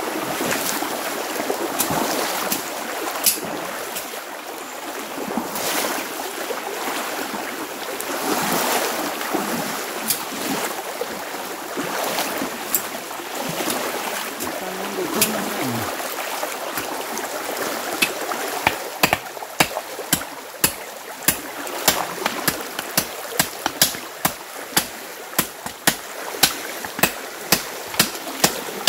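Rushing water of a swollen, fast-flowing muddy creek, steady throughout. From about two-thirds of the way in, a run of sharp clicks about two a second sounds over the water.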